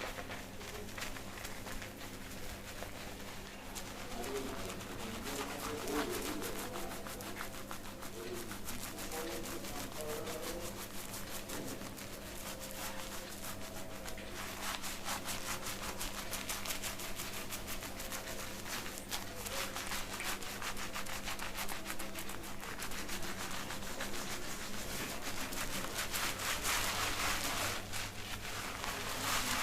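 Fingers scrubbing and scratching a shampoo-lathered scalp in a rapid, continuous rubbing that grows louder near the end. A bird coos in the background during the first half.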